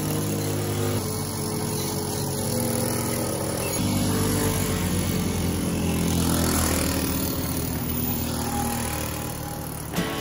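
Piaggio Ciao mopeds' small two-stroke engines running as the mopeds pull away and ride off, the engine note shifting up and down several times.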